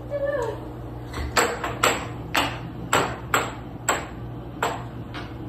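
Air hockey puck clacking against plastic mallets and the table's rails during fast play, about eight sharp, irregular hits, over a steady low hum.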